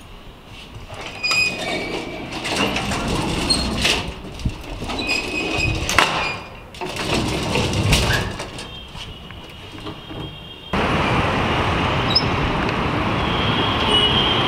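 Collapsible steel scissor gate being slid by hand, rattling and clanking in irregular strokes with metallic ringing. About 11 seconds in it cuts abruptly to steady street traffic noise.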